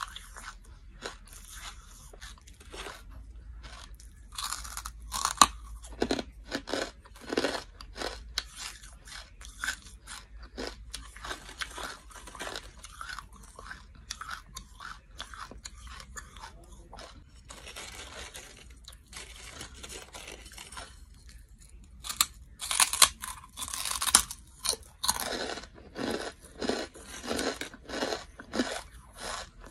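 Lumps of charcoal bitten and chewed: a rapid run of short, dry, brittle crunches. The loudest bites come about five seconds in and again around twenty-three seconds in.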